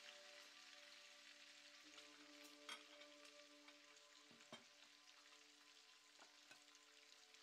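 Faint frying sizzle of food in a hot pan: a steady soft hiss with a few sharp pops scattered through it.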